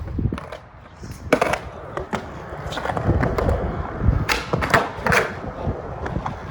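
Skateboard rolling on flat ground, its urethane wheels rumbling, with sharp clacks of the tail popping and the board landing during flip tricks, several of them bunched about four to five seconds in.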